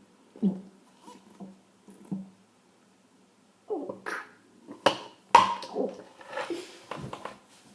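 A person swallowing a few soft gulps of drink, then from about halfway a run of louder throaty burps and gasps from drinking too much too fast.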